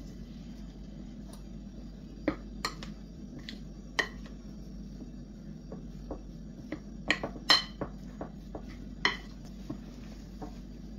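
Kitchenware clinking and knocking: about a dozen irregular knocks of utensils against dishes, some ringing briefly, the loudest about seven and a half seconds in, over a steady low hum.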